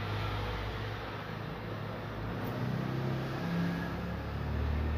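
Low engine drone of a motor vehicle, its pitch shifting up and then down in the middle.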